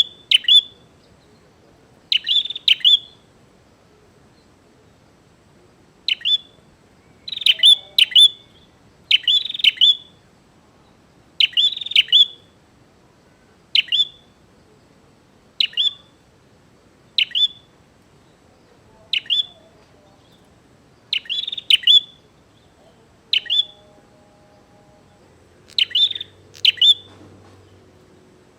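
Prinia (prenjak) calling over and over in challenging chatter: short, sharp, high chips in clusters of two or three, about every one to two seconds.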